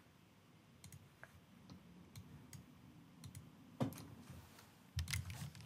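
Faint, scattered clicks of a computer mouse and keyboard, with a louder click a little before four seconds in and a quick run of clicks near the end.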